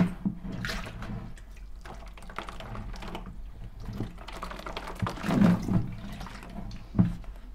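Boiling water from a stainless kettle poured into a white plastic fermenting bucket and sloshed around its walls to sterilise it, with the plastic bucket knocking as it is tipped and handled. A sharp knock near the end.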